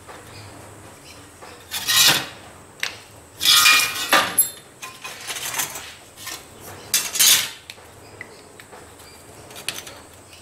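Metal clattering and scraping: pieces of thin stainless steel sheet and a steel rule being slid and set down on the work surface. There are three loud clatters, the longest and loudest about three and a half seconds in, with a brief metallic ring.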